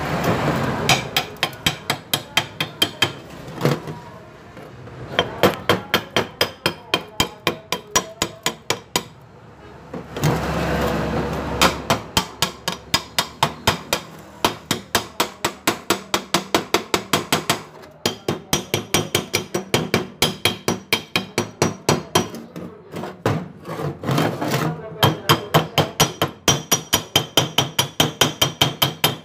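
Chipping hammer knocking slag off a fresh stick weld on steel angle iron: rapid sharp taps, about four or five a second, in runs broken by short pauses.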